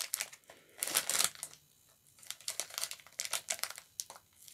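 Small clear plastic bag of wax melts crinkling in the hands, in several short bursts of crackles with quiet gaps between.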